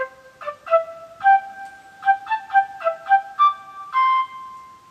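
Instrumental intro music: a single flute-like melody of short notes, ending on one longer held note that fades out.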